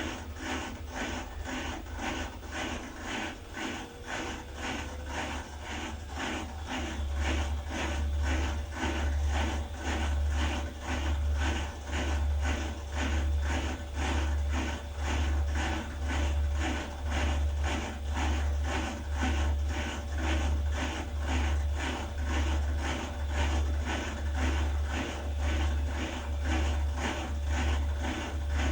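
BEKO WDX8543130W washer-dryer running with a rhythmic mechanical rubbing and clicking, several strokes a second, over a low hum that swells about once a second as the drum turns. It grows louder about seven seconds in. These are the weird noises from a machine that is not drying the laundry.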